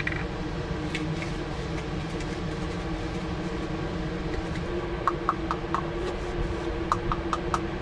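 Small clicks from a plastic herb grinder being twisted and worked by hand, in two quick runs of about four clicks each, around five and seven seconds in. Under them is a steady mechanical hum, like a fan.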